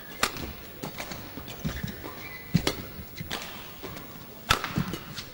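Badminton rally: sharp racket strikes on the shuttlecock, the loudest a couple of seconds apart, among the players' quick footfalls on the court.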